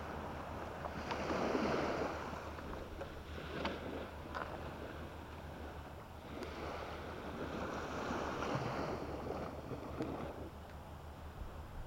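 Sea waves washing onto the shore: a rushing hiss that swells and fades in slow surges, with a few faint clicks in between.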